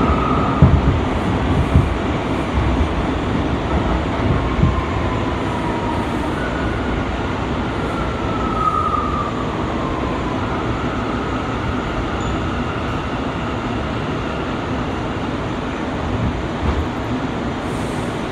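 Bombardier R179 subway car with IGBT-VVVF AC propulsion running between stations, heard from inside the car. A steady rumble of wheels on the track runs throughout, and a faint whine rises and falls in pitch midway.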